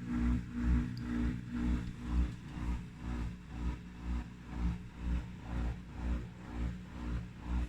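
Samsung dishwasher running with a strange low hum that swells and fades evenly, about twice a second.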